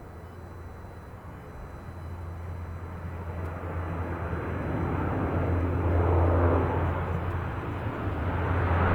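Lockheed C-130H Hercules's four Allison T56 turboprop engines droning as the aircraft comes closer, with a steady low propeller hum under a rising rush of engine noise. It grows steadily louder to a peak about six seconds in, eases slightly, then swells again near the end.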